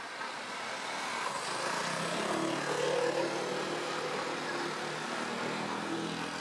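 An engine passing by: a rushing sound with a steady low hum that swells to its loudest about three seconds in, then fades.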